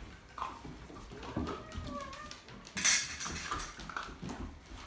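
Dry pet food rattling into a bowl about three seconds in, with a short wavering cry from a pet just before.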